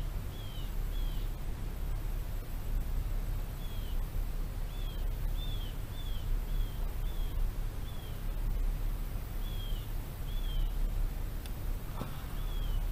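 A bird calling over and over, short downward-slurred chirps at roughly one a second, over a steady low rumble. A single sharp knock near the end.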